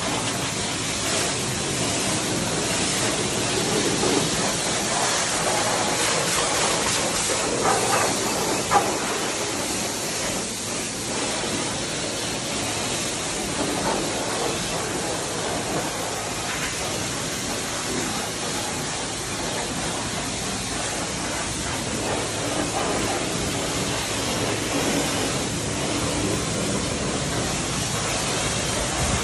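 Pressure washer spraying a mud-covered dirt bike: a steady hiss of water jetting onto the bike.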